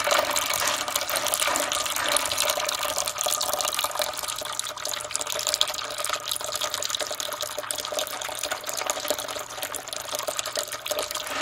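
Tap water running in a thin steady stream into a bowl of dry pinto beans, filling the bowl to soak them.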